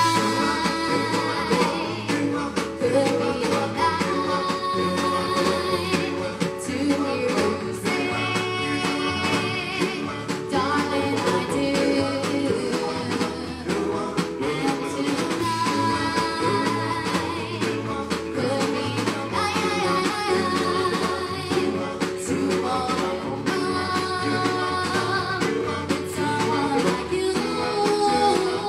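Live doo-wop band playing: male and female voices sing over electric guitar and a drum kit keeping a steady beat.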